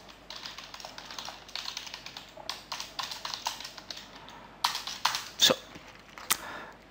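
Typing on a computer keyboard: a quick run of light keystrokes, then a few louder, separate key clicks near the end.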